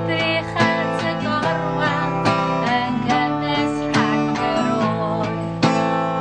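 Acoustic guitar strummed in a steady rhythm, with a woman singing a song in Welsh over it.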